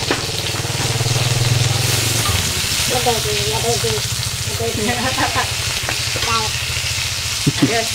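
Food frying in a pan with a steady sizzle.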